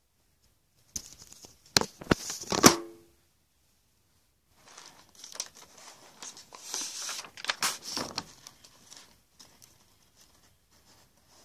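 A few sharp knocks and clicks from handling, then sheets of coloured paper rustling and crinkling as they are gathered up.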